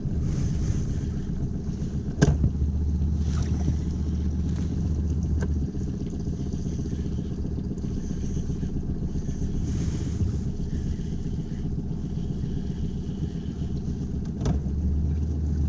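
Suzuki outboard motor running steadily at trolling speed, a low continuous hum. Two sharp knocks stand out, one about two seconds in and one near the end.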